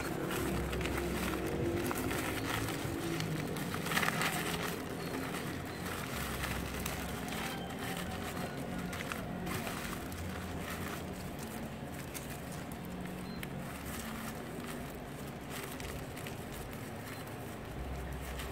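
Rustling and crinkling of a woven sack being wrapped and tied around a tree trunk, with a louder rustle about four seconds in, over a steady low background rumble.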